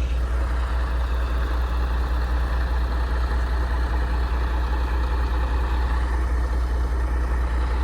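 Truck engine running steadily with a strong, even low hum and no change in pitch.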